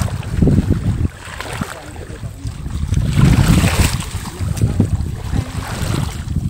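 Wind buffeting the microphone, with water sloshing and splashing as someone wades through shallow muddy floodwater. The splashing is strongest about half a second in and again around three to four seconds in.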